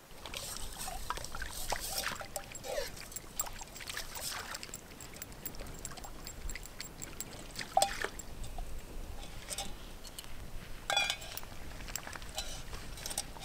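Water splashing and trickling as something is rinsed by hand in the shallows at a lake's edge, with scattered sharp clicks throughout.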